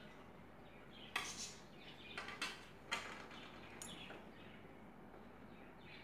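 A few short, faint clinks and clatters of a metal slotted spoon against the frying pan, over a faint steady hiss of hot oil.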